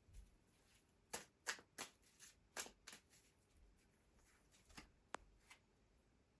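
A deck of divination cards shuffled by hand, faint: a quick run of about seven card flicks, then two single light snaps near the end.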